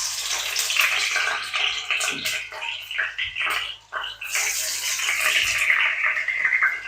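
Coconut-milk-soaked bammy (cassava flatbread) going into a hot frying pan, sizzling and crackling in the oil. The sizzle starts suddenly and stays loud.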